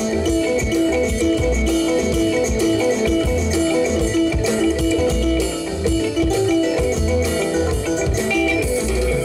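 Live band music: electric guitars over bass and drums with a regular deep bass pulse and a steady beat.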